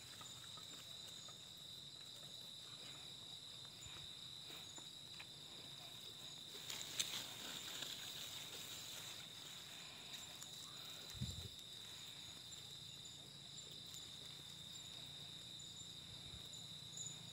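Faint, steady high-pitched insect chorus, crickets or similar, with a brief brighter crackle about seven seconds in and a short low thump about eleven seconds in.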